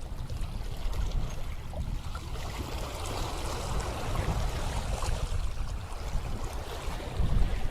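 Sea waves washing over shoreline rocks, a hiss that swells and fades through the middle, with wind buffeting the microphone as a constant low rumble.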